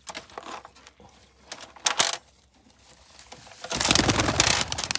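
Racing pigeons at the loft: a few sharp clicks, then a loud rush of flapping wings starting a little over a second before the end.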